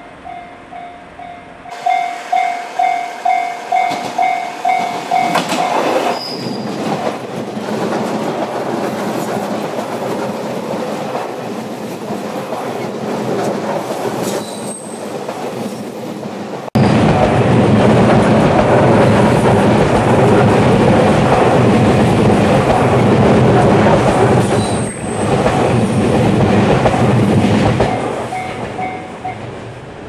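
A level-crossing warning bell rings in quick, even pulses, then a JR Shikoku 8000-series electric train passes close by with a loud rumble and clatter of wheels on rail. The train noise jumps suddenly louder about 17 seconds in, then fades near the end, when the crossing bell can be heard faintly again.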